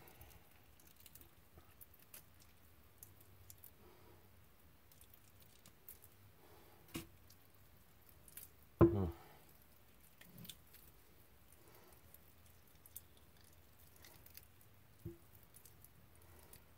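Hands pulling meat and gelatinous skin off cooked pig feet: faint wet squishes and small clicks of fingers on bone and the cutting board, with a sharp click about seven seconds in and a short grunt-like vocal sound just before nine seconds, the loudest moment.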